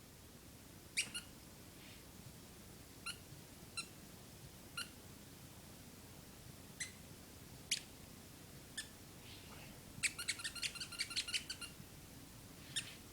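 Rubber squeaky ball being squeezed by a pet: short high squeaks spaced a second or so apart, then a quick run of about ten squeaks about ten seconds in.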